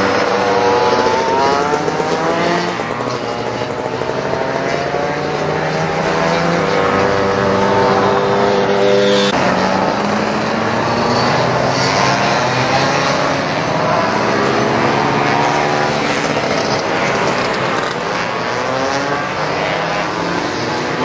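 Racing scooter engines revving up and down as the scooters brake, corner and accelerate past, several engines overlapping with rising and falling pitch. The sound changes abruptly about nine seconds in.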